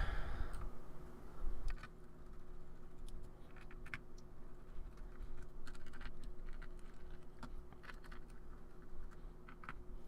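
A precision screwdriver backing out small screws from a hard drive's metal cover: scattered light clicks and scrapes of bit on screw and casing, over a steady low hum.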